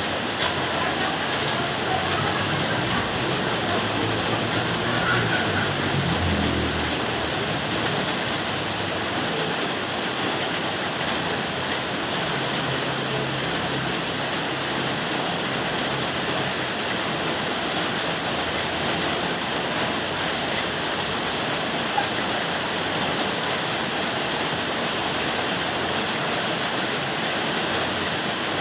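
Steady rain, an even hiss without a break, with a low rumble underneath from about three to seven seconds in and again in the middle.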